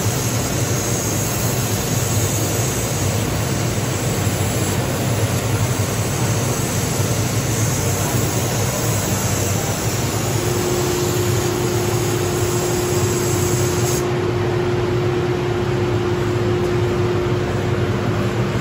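Steady rushing noise and hum of a 600 W CO2 laser cutter running while it cuts thick plywood die board. A steady tone joins about halfway through, and the high hiss thins out about three-quarters of the way in.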